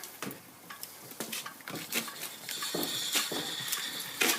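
1917 Drummond B-type treadle lathe turning metal: irregular clicks and scraping from the cutting tool and the foot-driven mechanism, with a thin high ring about three seconds in.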